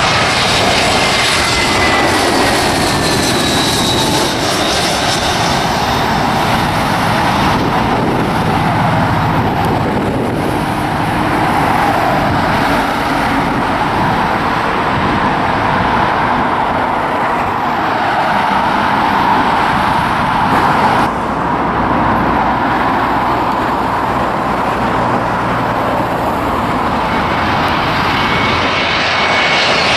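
Jet airliners passing low on approach to land: a loud, continuous engine roar, with a high engine whine that falls in pitch as the aircraft goes by. The sound changes abruptly about two-thirds of the way through, and near the end another jet's whine is heard rising as it approaches.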